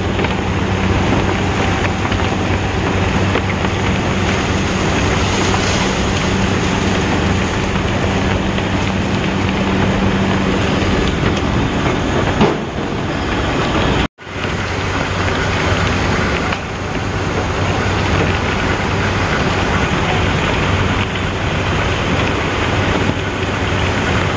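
Sugar-mill cane carrier conveyor and cane-feeding machinery running as sugarcane is carried along: a loud, steady mechanical din with a low hum through the first half. The sound drops out for an instant about halfway, then the din carries on.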